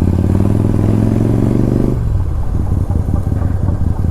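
Motorcycle engine running at steady throttle while riding, then the throttle closes about halfway through and the engine note drops away to a rougher, lower running as the bike slows for a turn.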